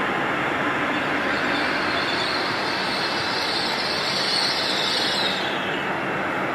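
A train running past on the main line: a steady rush of wheel and rail noise. A high hiss swells through the middle and drops away about five and a half seconds in.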